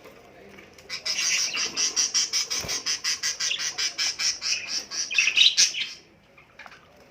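Caged budgerigars chirping in a fast, even run of high notes, about five a second, for roughly five seconds. The run ends in a short warble.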